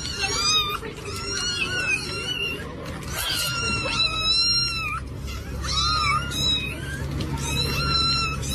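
A cat meowing over and over in high-pitched, wavering cries, about eight of them in quick succession, with a low steady hum underneath.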